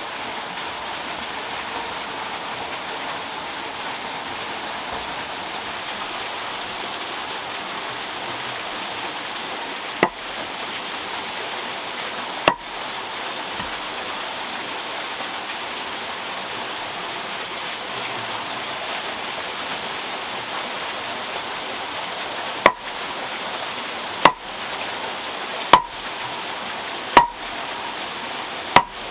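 Steady rush of water pouring over a waterwheel, with sharp knocks of a mallet driving a wooden stake into the ground: two blows about ten and twelve seconds in, then five more about every second and a half near the end.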